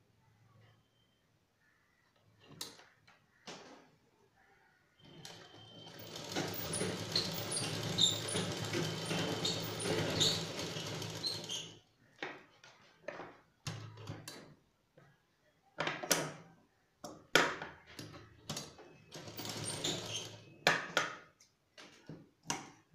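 Sewing machine running and stitching for about six seconds, with a steady low hum under the clatter, then a second short burst of stitching near the end. In between, fabric is handled, with scattered rustles and clicks.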